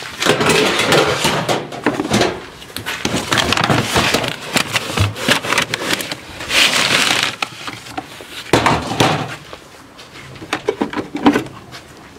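Chicken feed being got out of galvanized metal feed cans: an irregular run of rustling, scraping and knocks, with short bursts of hiss.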